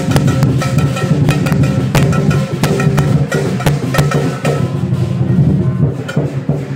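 Lion dance percussion: a drum beaten fast with clashing cymbals, the strikes thinning out over the last couple of seconds.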